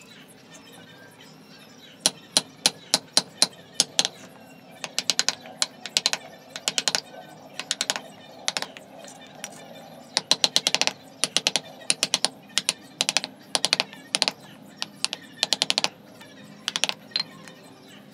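Wooden mallet tapping a carving chisel into a small wooden elephant figure, chipping off wood, in quick runs of sharp knocks that start about two seconds in.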